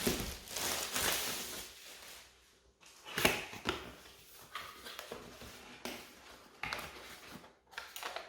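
Plastic packaging and a cardboard box being handled during unboxing: irregular rustling and crinkling with a few sharp clicks and knocks, busiest in the first two seconds and again around three seconds in.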